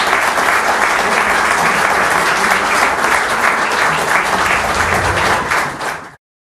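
Audience applauding, a dense, steady clapping that fades and then cuts off abruptly near the end.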